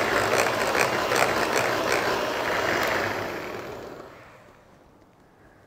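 Philips electric hand mixer running, its beaters whirring through a thick margarine-and-sugar cake batter in a glass bowl with a regular pulse about three times a second. The sound dies away after about three seconds.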